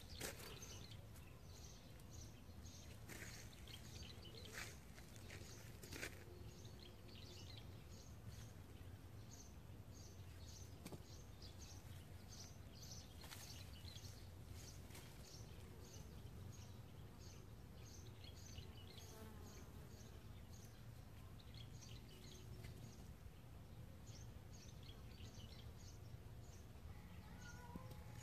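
Faint outdoor ambience: a steady low rumble with short, high chirps repeating about twice a second, and a few soft knocks in the first six seconds.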